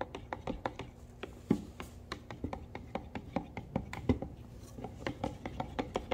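Wooden stir stick scraping and knocking against the sides of a plastic mixing cup while stirring paint: a steady run of short ticks, several a second.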